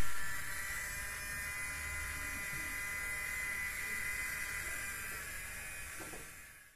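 Small Tamiya DC motor of a homemade mini fogging machine running with a steady high buzzing whine, fading out near the end.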